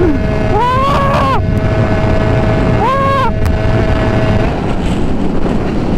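Derbi-engined 80cc two-stroke moped with an Italkit big-bore kit running at speed, heard from the saddle with wind rush on the microphone. The engine pitch rises and falls back twice, about a second in and again around three seconds.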